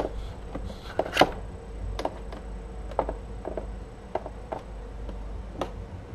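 A series of about a dozen light, irregular taps and clicks, the loudest about a second in, from a cat's paws and claws on the rim of a plastic cat house. A faint steady hum runs underneath.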